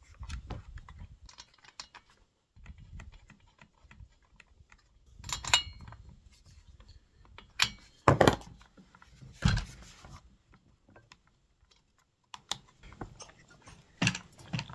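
Plastic parts of a Stihl string trimmer's engine housing and air filter cover being handled and fitted: scattered sharp clicks and knocks, a few louder ones near the middle.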